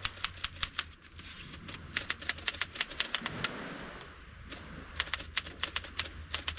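Vintage manual Underwood typewriter being typed on: quick runs of sharp key clacks, several a second, broken by two short pauses.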